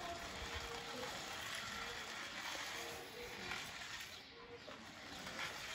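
Small electric motor of a toy remote-control jeep whirring faintly in short spurts as it drives across tiles, over a steady faint hiss.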